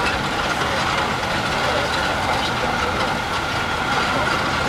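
Open-air resort tram running along a paved path: a steady drone of its motor and road noise, with a faint steady high tone running through it.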